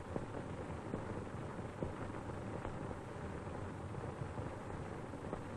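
Steady hiss and crackle of an old optical film soundtrack, with scattered faint clicks and a faint steady hum.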